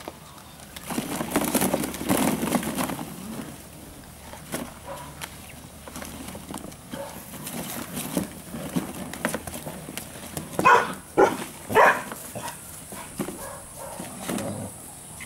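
Vizsla puppies rummaging through a kiddie pool of hollow plastic play balls, with a stretch of dense clattering early on and scattered knocks after. A little past two-thirds of the way through come three short, sharp puppy barks, the loudest sounds here.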